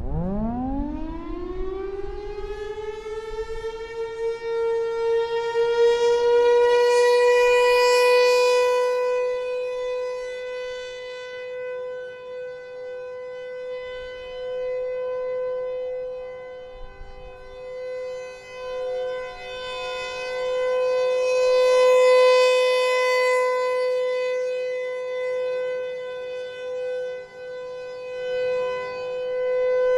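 Federal Signal Thunderbolt 1000 rotating outdoor warning siren starting up: its pitch climbs quickly over the first few seconds, then it holds one steady tone. The sound swells louder and softer several times as the rotating horn sweeps past.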